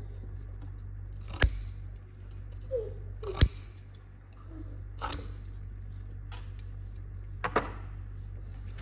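Sharp metal clicks of tweezers handling a metal wick clip while a wooden wick is set into a candle container: four separate clicks spread a second or two apart, over a steady low hum.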